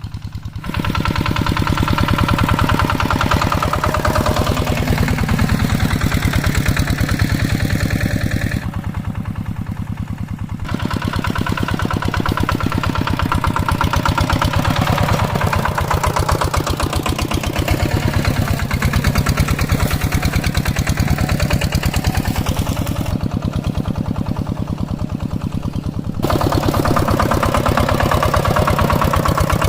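Hand tractor's engine running steadily with a rapid, even thudding beat. It gets louder about a second in and eases off twice, in the middle and again before the end, then picks up again.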